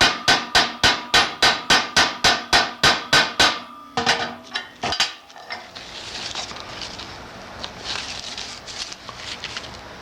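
Hammer striking a grommet-setting tool on a metal plate: a fast, even run of ringing metal blows, about three and a half a second, flaring a tarp grommet. The blows stop after about three and a half seconds, a few lighter taps follow, then quieter scraping and rustling.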